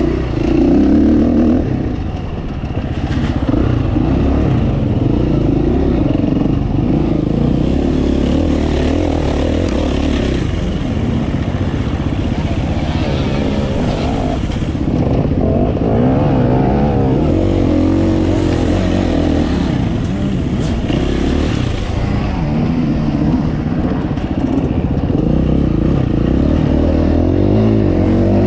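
KTM 350 four-stroke single-cylinder enduro motorcycle engine ridden hard, its revs rising and falling over and over as the rider works the throttle and gears.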